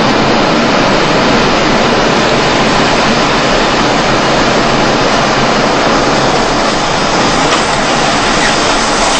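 Roar of an EF4 tornado at close range: a loud, steady rushing of violent wind.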